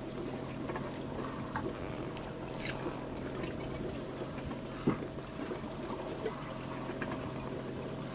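Steady drone of a boat's engine, with water sloshing and trickling along the hull, scattered small clicks, and one sharp knock about five seconds in.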